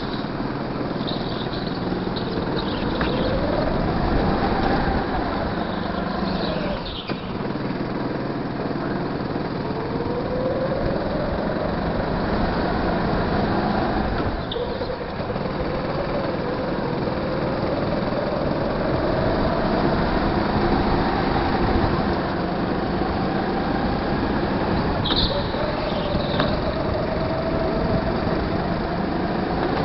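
Go-kart engine heard from on board, its pitch rising and falling repeatedly as the kart speeds up and slows through the corners. A couple of short high squeaks come near the end.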